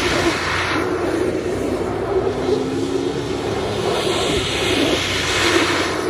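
Lifted Jeep's engine running hard as it spins donuts in snow, its wheels throwing up spray. A rushing hiss swells over the engine twice, near the start and again about four seconds in.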